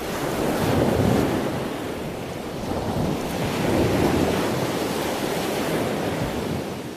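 Ocean waves: a steady rush of surf that swells twice, about three seconds apart.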